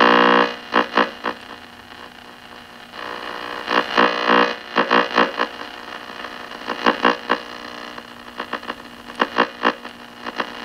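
Zenith 4-T-26 tube radio on its shortwave band, its speaker giving irregular bursts of static, crackle and whistling over a steady hum as the dial is turned, catching only interference and no station. The loudest burst comes right at the start.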